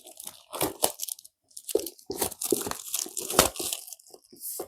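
A headphone box's packaging being torn and opened by hand: irregular rustling and tearing noises with sharp clicks, busiest from about two seconds in.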